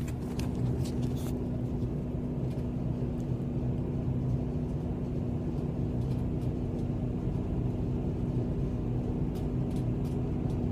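Steady low rumble with a constant hum from the RV running, heard inside its cabin. A few clicks and knocks in the first second or so come from the camera being handled and set down.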